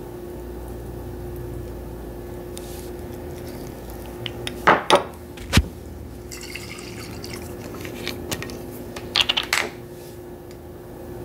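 Kitchen handling sounds while a turmeric face mask is mixed: a few sharp knocks of a metal spoon against a small bowl about halfway through, and a quick run of clicks near the end as a glass bottle of apple cider vinegar is picked up, over a steady low hum.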